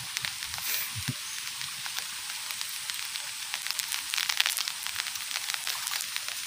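Steady rain hiss with a dense patter of small drop ticks, busiest about four seconds in, plus a couple of soft low thumps about a second in.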